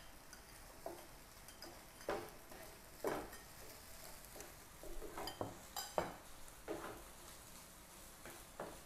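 Wooden spatula scraping and knocking against a nonstick frying pan as rice is stir-fried, with a faint sizzle beneath. The strokes come irregularly, with a sharper ringing clink about six seconds in.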